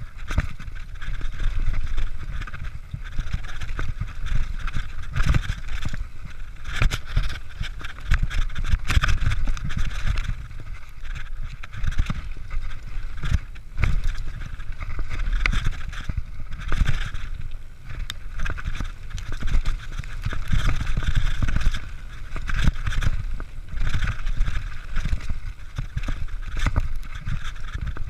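Mountain bike ridden fast down a dirt forest trail: wind buffeting the camera microphone, tyre noise on the dirt, and the bike rattling with frequent sharp knocks over bumps.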